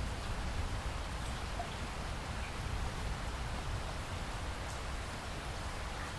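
Steady rain falling, an even hiss with a low rumble underneath and a few faint scattered drops.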